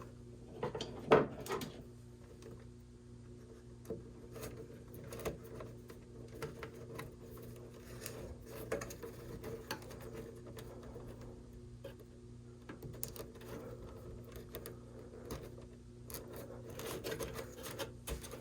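Zip ties and bundled wires being handled and pulled inside a NAS chassis: scattered small plastic clicks and rubbing, with one sharper click about a second in. A steady faint hum runs underneath.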